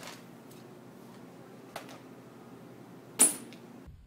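Quiet room tone with a few faint clicks, then a single short, loud, hissing burst about three seconds in that dies away within half a second.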